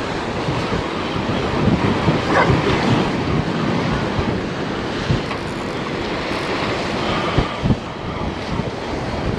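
Wind buffeting the microphone over surf washing and breaking against breakwater rocks, a steady rushing noise with gusty low rumbles.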